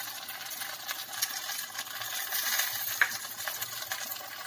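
Steady sizzling hiss with fine crackles from vegetables cooking in a stainless steel pot over a gas flame, with one sharper tick about three seconds in.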